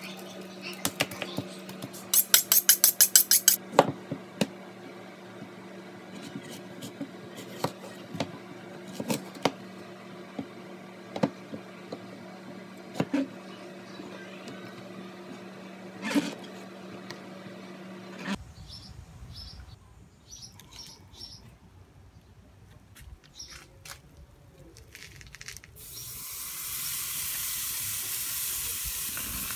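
Knife clicks and taps on a plastic cutting board over a steady hum, with a quick run of loud clicks a couple of seconds in. After a quieter stretch, a beef steak starts sizzling on the hot grate of a charcoal grill near the end.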